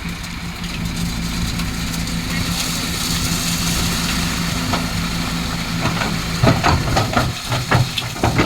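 Diesel engine of heavy construction machinery running steadily. About two-thirds of the way in, voices start over the engine sound.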